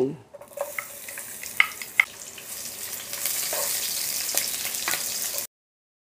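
Sliced onion sizzling in hot cooking oil in a nonstick pan, stirred with a spatula that clicks against the pan now and then. The sizzle builds as the onion heats and cuts off suddenly near the end.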